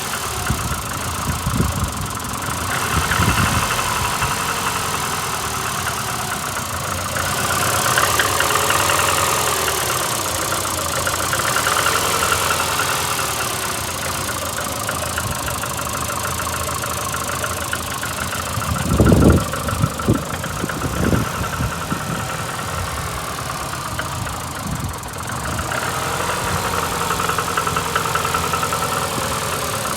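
Car engine idling cold and running rough, with a rapid knocking in its note: a misfire on one cylinder plus a knock the owner cannot place. A few low thumps come about two-thirds of the way through.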